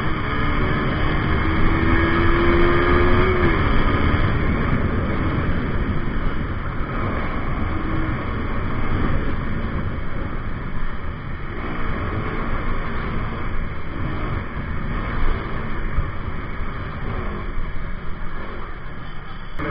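KTM RC200 motorcycle riding at speed, heavy wind rush on the bike-mounted microphone over its single-cylinder engine. The engine note holds and rises slightly, then falls away about three and a half seconds in.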